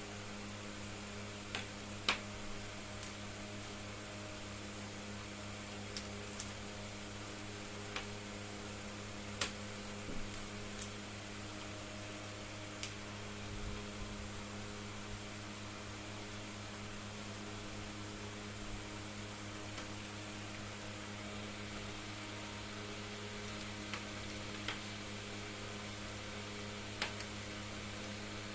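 Steady electrical mains hum over faint hiss, with a dozen or so light clicks and taps at uneven intervals.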